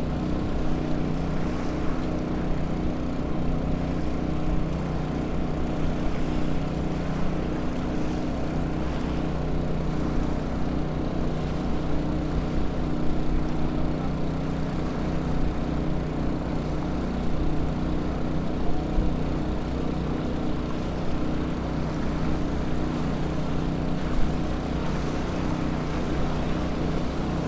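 Small Honda 2000 portable generator's engine running at a steady speed, a constant hum with an unchanging pitch.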